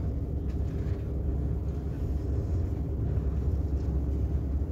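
Steady low rumble of a train carriage, heard from inside, with a faint even hum over it.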